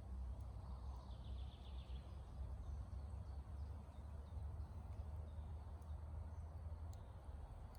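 Songbirds calling faintly: a short, rapid trill about a second in, then scattered high chirps, over a steady low rumble.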